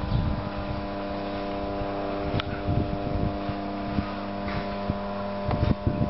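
Steady, even hum of a running motor, holding one pitch throughout, with irregular low rumbling and a few faint clicks.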